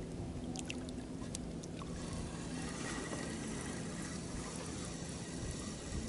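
Small waves lapping and trickling against the side of an inflatable boat, with a few faint light clicks about a second in.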